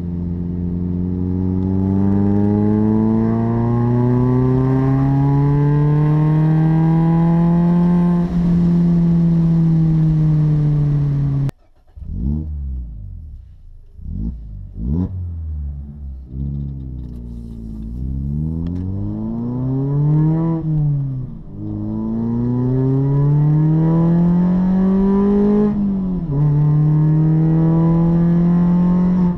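Mazda MX-5 Miata ND four-cylinder engine through an aftermarket full exhaust (a Global Cup-style system with a catalytic converter), heard from inside the cabin. It pulls hard in third gear, pitch rising steadily for about eight seconds before easing off. After a sudden cut, there are a few quick sharp revs with the car stopped, then it accelerates again with pitch rising and falling at gear changes, holding high revs near the end.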